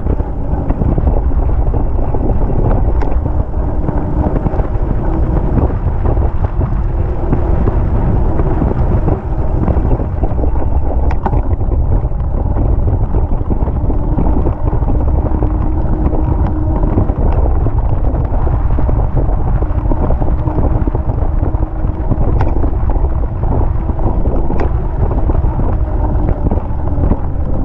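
Steady wind rumble on a bike-mounted action camera's microphone while a bicycle is ridden along at speed.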